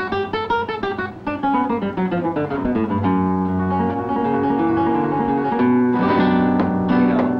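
Nylon-string classical guitar played fingerstyle in a flamenco style: a fast run of single notes falling in pitch, then ringing chords, with quick strummed chords near the end.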